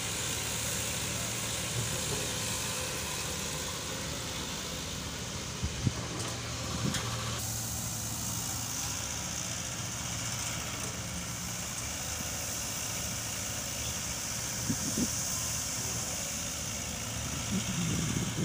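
A heavy vehicle engine idling steadily with a low hum, with a couple of short knocks about six and seven seconds in.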